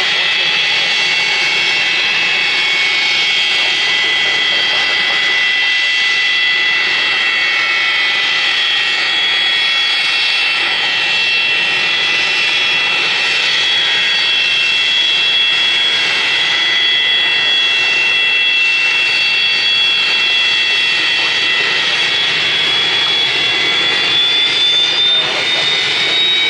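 Pratt & Whitney JT8D turbofans of a Boeing 727-281 Super 27 tri-jet running at low taxi power: a steady jet whine with several high tones over engine rush, the highest tone rising slightly near the end.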